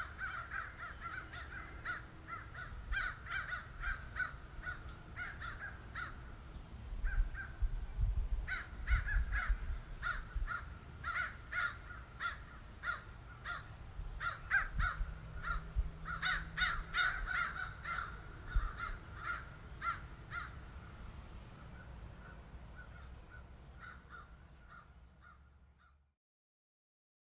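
Several crows cawing in repeated bursts of short, harsh calls, over a low rumble; the cawing fades out near the end, then cuts to silence.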